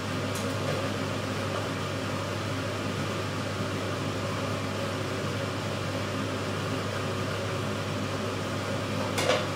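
Steady low hum with an even hiss, like a running fan or appliance, with no distinct clatter or pouring standing out.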